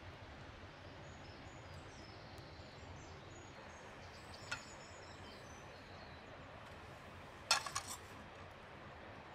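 Steady outdoor forest ambience with faint high bird chirps, a single sharp click about four and a half seconds in, and a quick cluster of sharp clicks and knocks near the end as cooking gear is handled on the ground.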